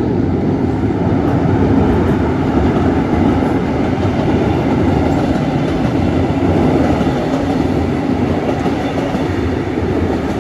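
A passenger train passing close by, thought to be a Brightline train: a loud, steady rumble of wheels on the rails that starts abruptly and holds throughout.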